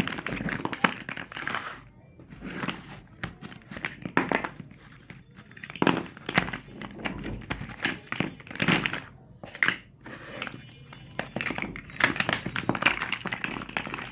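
Plastic building blocks being handled: irregular clicks, taps and clattering as pieces are picked up and fitted together, with occasional louder rattling bursts.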